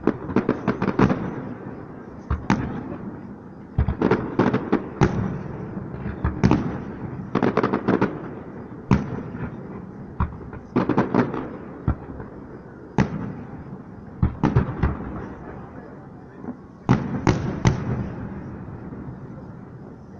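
Aerial fireworks shells bursting: sharp bangs in clusters every second or two, each trailed by a rolling rumble.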